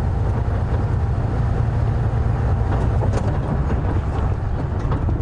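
Safari game-drive vehicle's engine idling with a steady low rumble.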